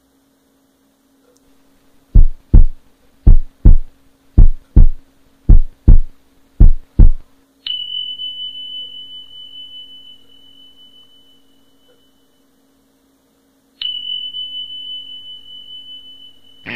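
Heartbeat sound effect: five slow lub-dub double thumps, about one a second. It is followed by a high pure ringing tone that starts sharply and fades over several seconds, then sounds again near the end, over a faint low steady hum.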